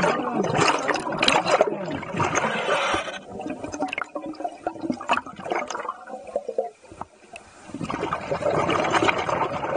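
Scuba diver breathing underwater through a regulator: exhaled air bubbles gurgling and rushing past the mask, in two long bursts with a quieter stretch between them.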